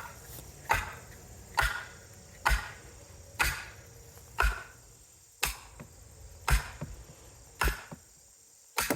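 Steady, repeated hammer blows striking wood, about ten strikes a little under a second apart, each with a short ring, spacing out slightly near the end.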